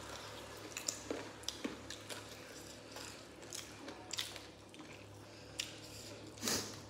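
Close-miked mukbang eating sounds of people eating rice and meat curry by hand: chewing, scattered short wet clicks and smacks, and fingers squishing rice on a banana leaf. One louder, longer sound comes near the end.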